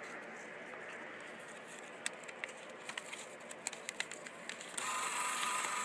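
Beer vending machine being worked by hand: a series of small sharp clicks and taps, then, a little before the end, a steady mechanical whirr that sets in suddenly and runs on for over a second.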